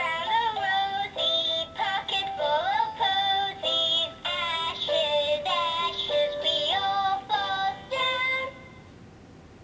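GUND Move With Me Monkey plush toy singing one of its built-in songs in a high-pitched voice. The song stops about eight and a half seconds in.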